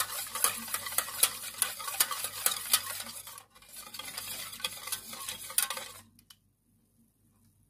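Wire whisk beating a cold milk and cornstarch mixture in a stainless steel saucepan: rapid scraping with many sharp clicks of the wires against the pan. There is a short break about three and a half seconds in, and the whisking stops about six seconds in.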